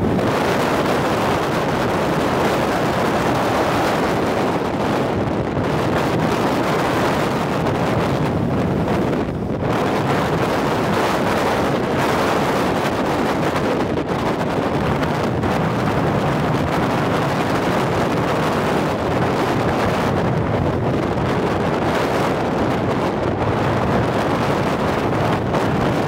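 Strong mountain wind of about 10 to 15 m/s blowing hard across the microphone, a loud, steady rush with slight rises and falls as it gusts.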